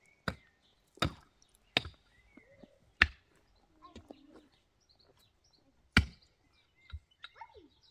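Long-handled hand digging tool striking hard, dry earth: six sharp blows, four in fairly quick succession, then a pause of about three seconds before two more.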